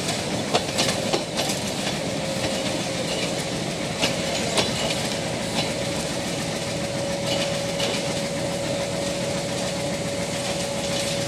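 Passenger coaches of a departing diesel-hauled train rolling past, steel wheels clicking over the rail joints, the clicks thinning out after the first few seconds as the last coach draws away. A steady whining tone runs underneath.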